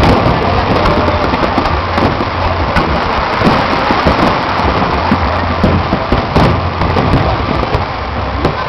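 Fireworks display: a continuous, dense stream of overlapping bangs and crackles from many shells bursting.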